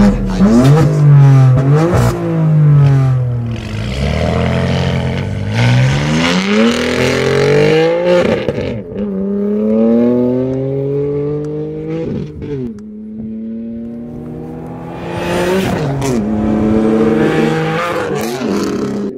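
Engine revving hard several times, its pitch climbing and then dropping sharply each time, with sharp clattering hits at several points.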